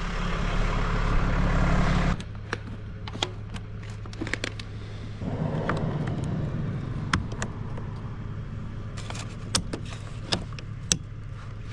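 A vehicle engine idles steadily underneath many sharp metallic clicks and clanks: jump-starter clamps and cables are being handled and clipped onto a car battery. A louder rushing noise covers the first two seconds and cuts off abruptly.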